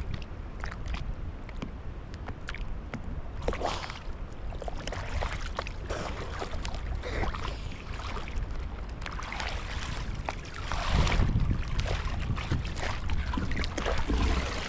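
Water sloshing and splashing against a small fishing boat, with scattered knocks and clatter starting about four seconds in, over a steady low rumble.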